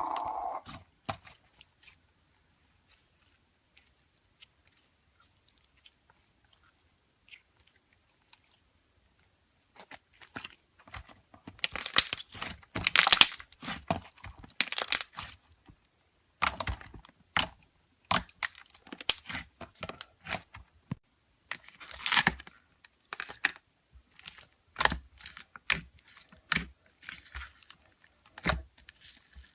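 Slime being handled, giving a run of sharp crackling clicks and pops that starts about a third of the way in, with louder bursts of crackling in the middle.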